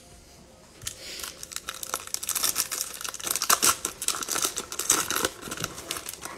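Plastic wrapper of a 2021 Panini Mosaic football cello pack crinkling and tearing as it is ripped open by hand. A dense crackle starts about a second in and goes on until nearly the end.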